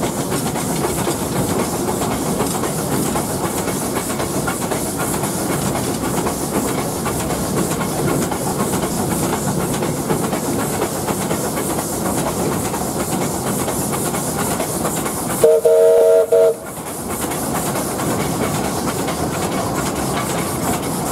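Bundaberg Fowler 0-6-2T steam locomotive running, heard from its cab as a steady noise of the working engine and wheels on the rails. About three-quarters of the way through, its steam whistle gives one blast lasting about a second.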